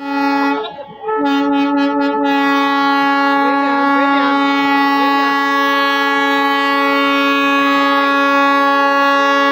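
Darjeeling Himalayan Railway toy train's locomotive horn sounding one long steady blast, briefly broken about a second in, with children's voices faintly over it.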